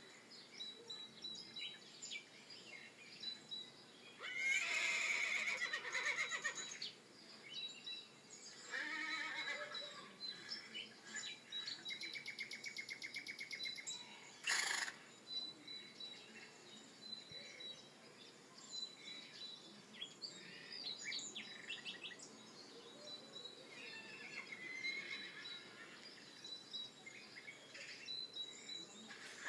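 A horse neighing several times, each whinny a loud, fluttering call, with small birds chirping steadily in the background.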